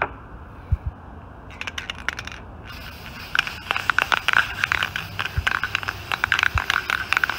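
Aerosol can of copper head-gasket sealant spraying onto head gaskets: a brief run of fine clicks, then a steady hiss full of crackle, with a few dull knocks.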